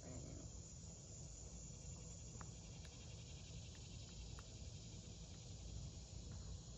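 Faint steady chorus of crickets chirring, with a few short faint ticks scattered through the middle.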